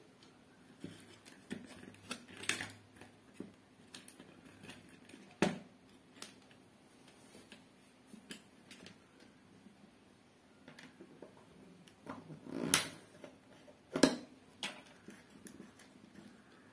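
Scattered small clicks, taps and scrapes of hands working wires, a screwdriver and brass screw terminals in a plastic extension board, with four louder knocks spread through.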